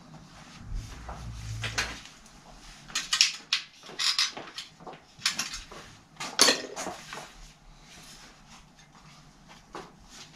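Metal hand tools and a spoked bicycle wheel clinking and rattling: a run of sharp clicks and clatters, loudest in the middle, as a tool is picked from the workbench.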